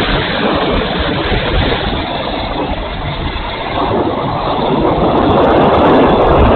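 Wind rush and propeller noise from a radio-controlled Hawker Hurricane model in flight, picked up by a camera mounted on its wing. It grows louder about four seconds in, as the plane rolls into a steep bank.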